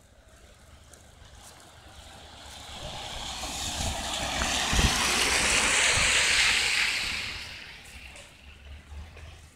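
A road vehicle passing by: its tyre noise swells over a few seconds, peaks just past the middle, then fades away.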